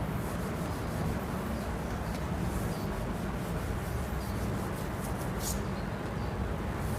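Steady low background rumble of the room and recording, with a faint short scratch about five seconds in.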